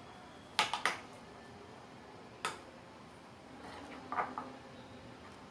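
A utensil clicking and tapping against a bowl as slime mixture is stirred: a pair of sharp clicks about half a second in, one more near the middle and another pair near the end.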